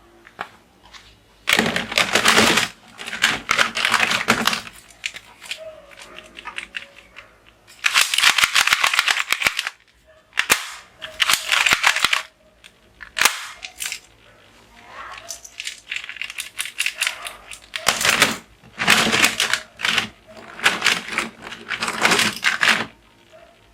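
Toy guns firing, in about eight bursts of rapid shot sounds, each one to two seconds long, with short pauses between them.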